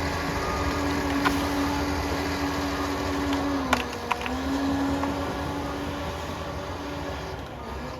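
Liebherr PR 746 crawler dozer's diesel engine running steadily, its pitch dipping briefly about halfway through, with three sharp knocks from the machine.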